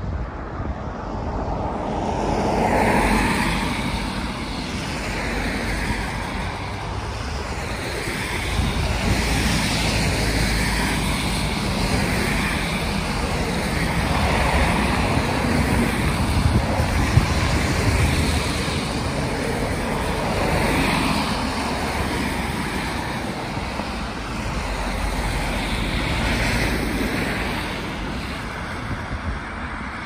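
Road traffic on a wet road: cars passing one after another, their tyres hissing on the wet asphalt, each pass swelling and fading over a few seconds.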